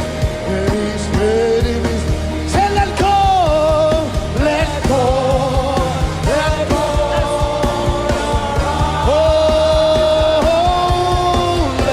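Gospel worship song: a singer holding long notes with vibrato and sliding between pitches over band accompaniment with a steady beat.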